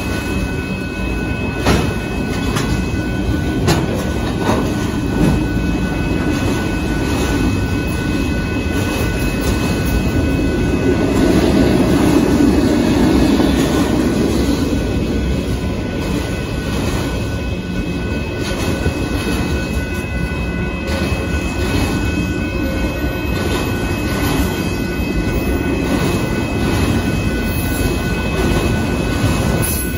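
Union Pacific freight train of autorack car carriers rolling past at a grade crossing: a continuous rumble of cars and steel wheels with scattered knocks and clanks, swelling loudest about halfway through.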